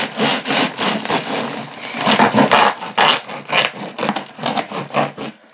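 A cardboard parcel being cut open with a blade, in repeated back-and-forth scraping strokes.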